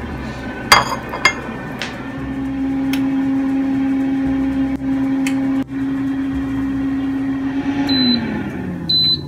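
NuWave air fryer's fan running with a steady hum, then beeping twice as its timer ends and the fan winds down in a falling pitch. A few sharp clinks of dishes about a second in.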